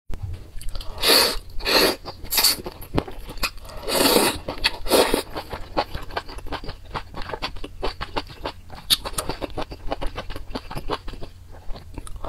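A person slurping noodles in several short, loud slurps, then chewing with a run of many small wet clicks and smacks.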